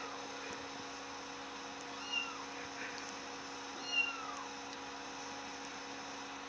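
Kitten-mewing ringtone playing through a phone's speaker: two thin, high kitten mews about two seconds apart, each rising and falling the same way, over a faint steady hum.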